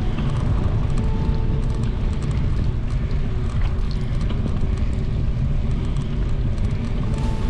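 Wind buffeting the microphone of a cyclist riding a bicycle, a steady low rumble with faint ticks from the bike over it.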